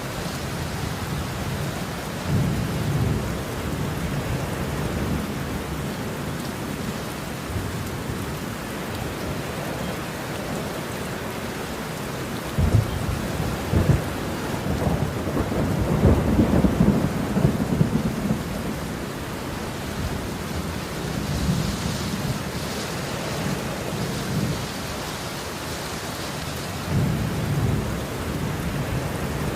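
Steady rain with thunder rolling in low rumbles throughout. About halfway through, two sharp claps lead into a longer, louder rumble, and fainter rolls follow near the end.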